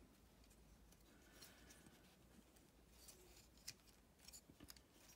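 Near silence, with a few faint clicks and scrapes of hard plastic as the joints and tabs of a Mechanic Toys MS-18 Steel Ambition transforming figure are worked by hand.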